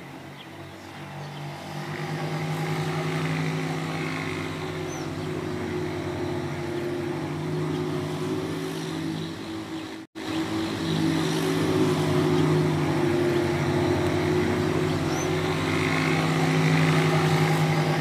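Steady low engine hum of a motor vehicle running, swelling over the first couple of seconds. It cuts out for an instant about ten seconds in, then resumes unchanged.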